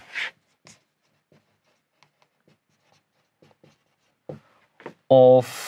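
Marker pen writing on a whiteboard: faint, short strokes at irregular intervals.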